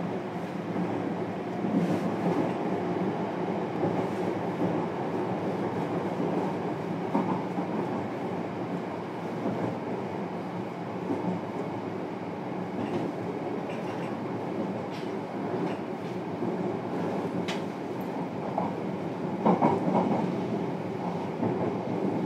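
Running sound heard inside the passenger cabin of a JR Kyushu 303 series electric train's motor car: a steady rolling rumble, with occasional sharp clicks from the wheels on the track.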